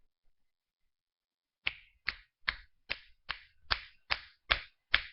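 A steady series of sharp slap-like hits, about two and a half a second, starting nearly two seconds in after a silence. Each hit is short with a quick fade, and they come nine times.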